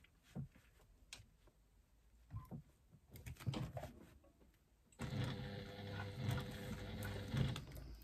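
A few faint clicks, then about five seconds in an electric sewing machine starts up and runs steadily, stitching through faux leather, stopping near the end.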